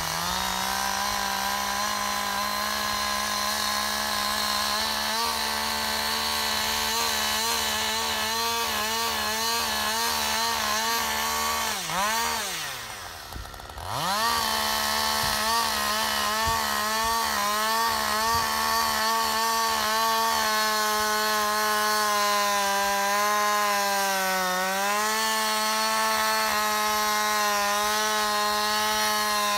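Two-stroke chainsaw running near full throttle while cutting into a dead tree trunk, its pitch wavering under load. About 12 to 14 seconds in, the pitch drops away sharply and climbs back. It then holds high, with a brief sag near the end.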